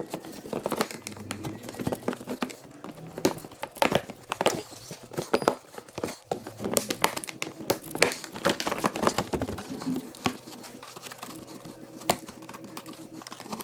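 Hard plastic body panels of a Can-Am Outlander ATV being unbolted, unclipped and handled: irregular clicks, knocks and crackling rustles of plastic.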